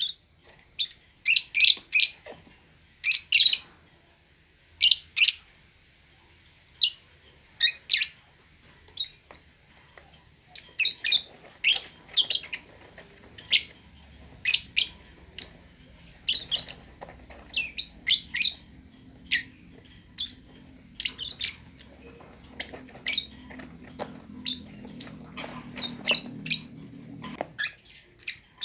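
Fischer's lovebirds calling: sharp, high-pitched chirps in short bursts, one every half second to a second or so, with a brief lull a few seconds in.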